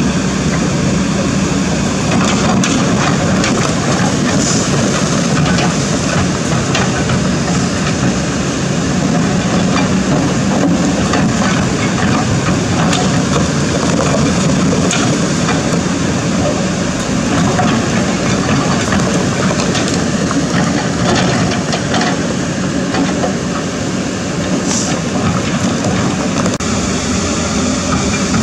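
Kobelco SK200 hydraulic excavator's diesel engine running steadily under load as it digs, with irregular knocks and clatter of stones and the steel bucket against rock.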